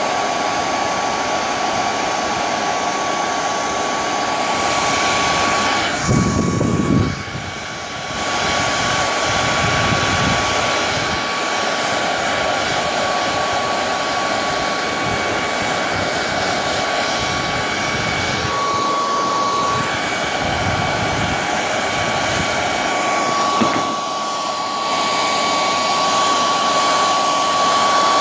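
Hair dryer running steadily, a rushing blow with a thin motor whine, aimed at a car stereo's circuit board to heat it. The sound briefly swells and then dips about seven seconds in.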